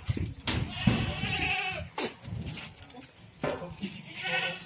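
Goat bleating twice: a long, wavering bleat starting about half a second in, then a shorter one near the end.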